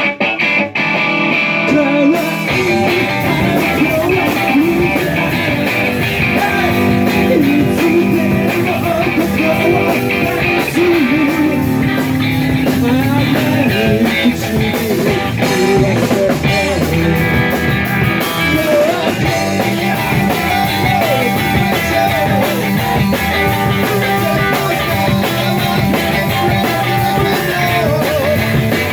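A rock and roll band playing live, electric guitar prominent over bass and drums, with a melody line that may be a voice.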